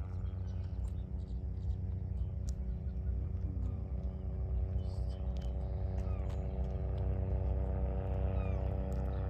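A steady engine or motor hum that grows slowly louder, over a low rumble, with a few faint bird chirps.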